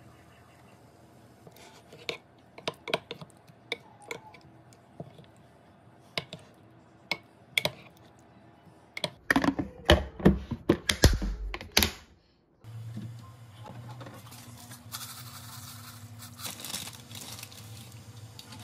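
A scatter of light sharp clicks while a blanched tomato is peeled by hand, then a run of loud plastic clacks as a glass food container's clip-lock lid is handled and snapped shut. After a cut, a pan of water heating on a glass-top hob gives a steady low hum and hiss.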